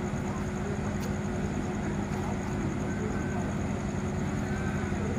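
Steady low drone of a vessel's diesel engine running, with an even hum.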